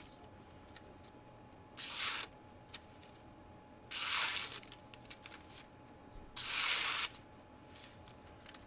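Eafengrow folding knife blade slicing through a sheet of thin printed paper three times, each cut a short papery hiss of about half a second, as a test of the edge's sharpness.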